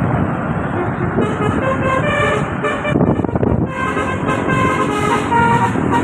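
Tour bus telolet horn, a Basuri-type multi-tone horn, playing a quick melody of short notes that jump in pitch several times a second, over loud vehicle and crowd-level background noise. It starts abruptly.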